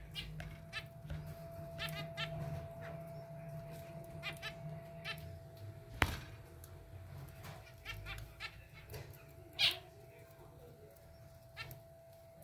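Zebra finches calling: many short, high calls, some in quick runs of two or three, over a faint steady hum, with a single sharp click about six seconds in.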